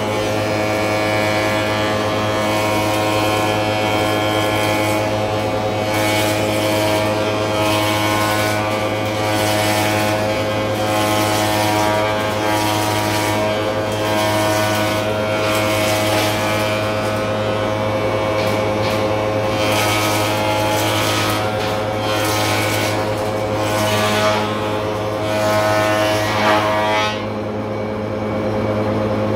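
Spindle moulder running with a steady machine hum while a length of timber is fed past the cutter to mould a skirting-board profile; the rough cutting noise rises and falls and stops about 27 seconds in, leaving the hum running on.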